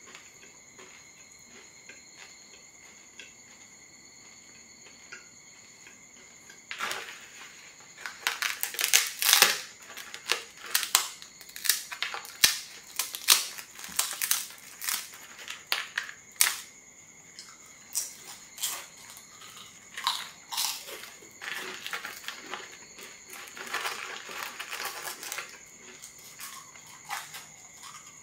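Thin, crisp flatbreads cracking and crunching as pieces are snapped off a stack by hand and eaten, a dense run of sharp, brittle cracks. It is quiet for the first several seconds, and the cracking starts about a quarter of the way in.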